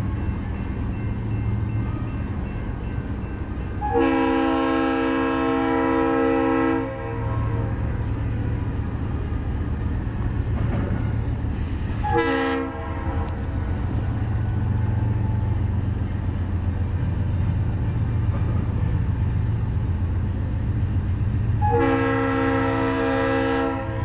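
Norfolk Southern high-hood EMD GP diesel locomotive sounding its air horn: a long blast about four seconds in, a short blast near the middle, and another long blast starting near the end. The diesel engine rumbles steadily underneath.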